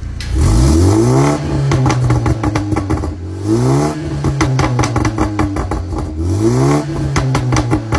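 BMW 330i engine with an aftermarket catless downpipe and tune, free-revved three times. Each rev rises quickly and holds briefly, then drops back with a run of pops and crackles on the overrun: the tune's burbles set to maximum.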